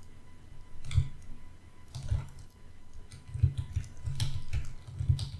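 Computer mouse clicks and keyboard key presses: a scattering of short sharp clicks, each with a dull thump from the desk, several close together about three to five seconds in.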